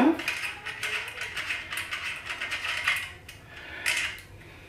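Ratchet wrench clicking in quick runs as the rear axle nut is loosened to take off a training wheel, with a few separate metal clicks near the end.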